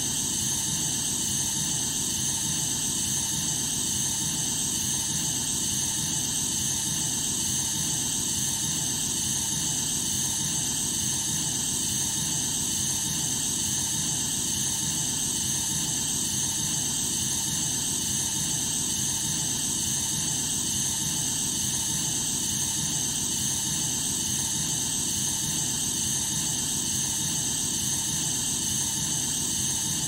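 Iron nanospheres pouring through the narrow neck of a glass hourglass, making a steady white-noise hiss that never breaks or changes, brightest high up with a softer low rush beneath.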